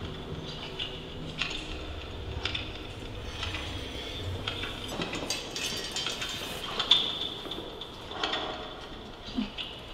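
Irregular metallic clinking and rattling, like small metal pieces knocked and shaken together, with a sharper clink about seven seconds in.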